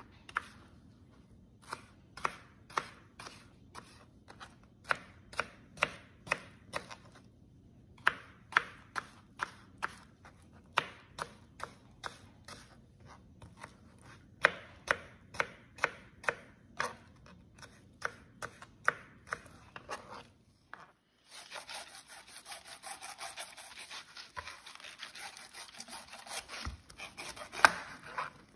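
Kitchen knife chopping through mango flesh onto a plastic cutting board, about two sharp taps a second with short pauses. About two-thirds of the way in this gives way to a knife sawing through a whole pineapple near its crown, a continuous scratchy noise with a few knocks.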